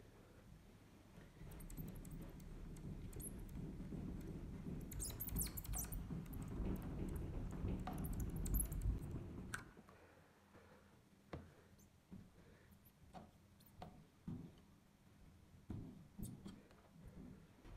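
Faint scratchy strokes of a steel knife blade scraped along a file clamped in a vise. After about nine and a half seconds the scraping gives way to scattered light clicks and taps.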